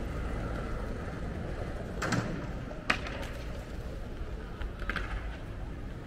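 City street ambience: a steady low rumble of distant traffic. Over it come three short, sharp knocks or clicks, about two, three and five seconds in, the one near three seconds the loudest.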